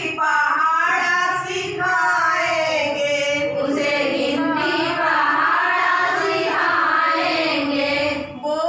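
A group of women singing a children's song together in long, melodic phrases.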